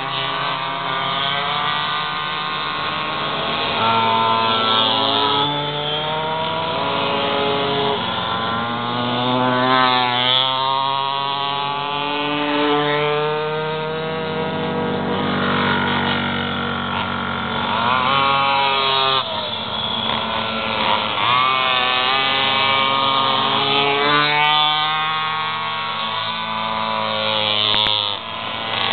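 Several two-stroke pocketbike engines racing at once, their engine notes rising and falling in pitch as the riders accelerate out of the corners and back off into them, overlapping one another.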